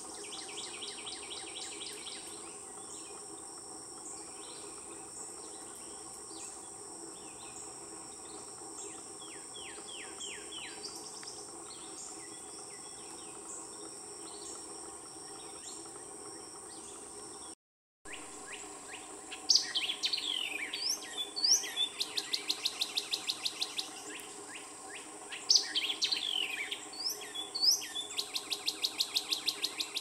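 Songbirds singing: runs of repeated down-slurred whistles and fast trills, over a steady high insect drone. Just past halfway there is a brief cut, after which the birdsong is louder and closer.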